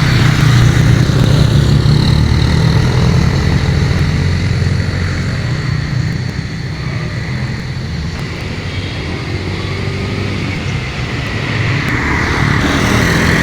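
Road traffic passing close by: a steady low engine rumble from passing vehicles, easing off in the middle and growing louder again near the end.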